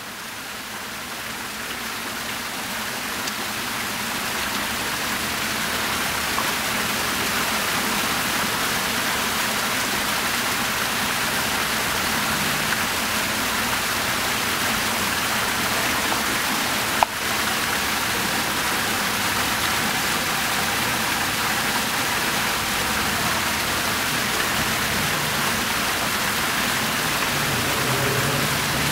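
Fountain water splashing steadily: a ring of small arcing jets and water falling from an upper bowl into the basin. It fades in over the first few seconds, and a single sharp click sounds about two-thirds of the way through.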